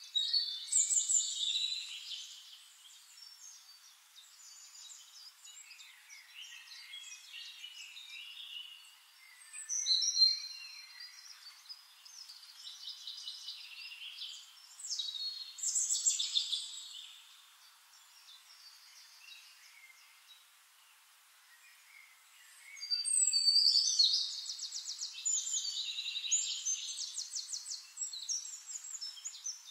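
Birds chirping and singing in separate bursts of high, short calls and quick trills, with quieter gaps between the phrases and a longer run of rapid trills near the end.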